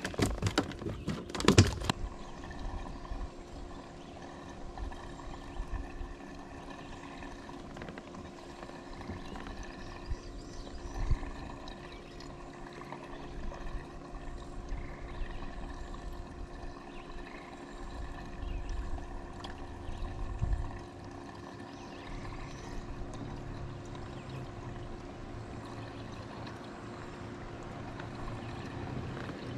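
Water lapping and trickling against a fishing kayak's hull, with a steady hum underneath. A few loud knocks come in the first two seconds.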